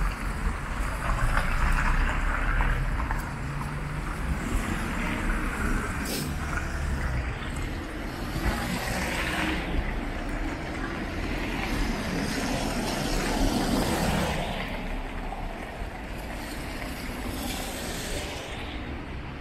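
Street traffic on a wet road: tyre hiss from passing cars swells and fades several times over a steady low rumble.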